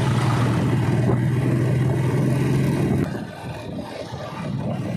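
Motorcycle engine running with a steady low hum that drops away sharply about three seconds in, leaving quieter road noise.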